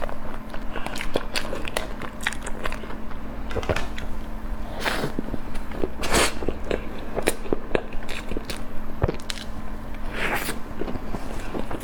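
Close-miked mukbang eating: a person biting and chewing food, with irregular sharp crackling clicks and a few louder crunchy bites.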